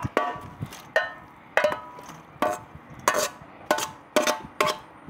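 Stainless steel mixing bowl clanking: about eight sharp metallic knocks, each ringing briefly, as mushrooms are added to the salad dressing.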